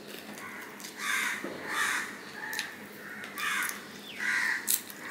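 A crow cawing repeatedly: about five harsh caws, each under a second apart, with a few sharp clicks between them.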